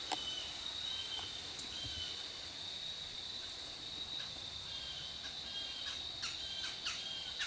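Faint woodland ambience: a steady high insect drone with short chirping bird calls repeating throughout, a few sweeping downward near the end.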